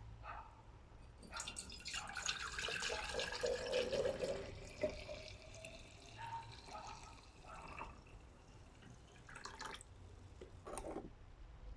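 Water dripping and trickling, mixed with irregular small clicks and knocks.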